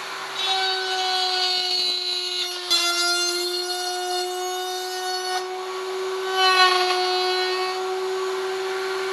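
Table-mounted wood router running at full speed with a steady high whine, cutting a full-depth trough in a wooden strip fed along the fence. The cutting noise rises and falls as the piece is pushed past the bit, with a small knock and a slight drop in pitch about a third of the way in.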